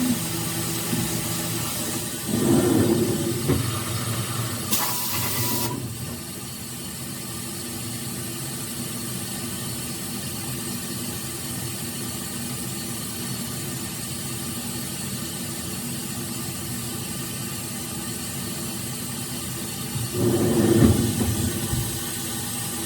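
CNC milling machine running a hole-machining cycle in an aluminium fixture: a steady machine hum with several held tones, growing rougher and louder twice, with a short burst of hissing spray about five seconds in.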